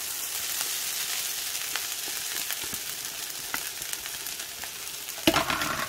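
Fried rice sizzling in bacon oil in a skillet on high heat, with scattered small ticks and crackles as scrambled egg and vegetables are scraped in from a plastic bowl with a spatula. A brief louder clatter comes near the end.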